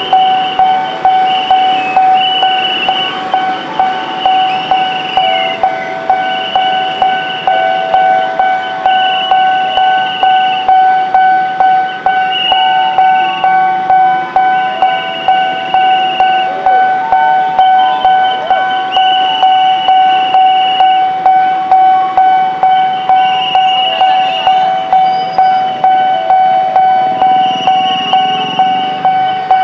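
Railroad level-crossing warning bell ringing in fast, even strikes, about two to three a second, over a steady tone: the crossing's alarm sounding with the barrier down for an approaching train.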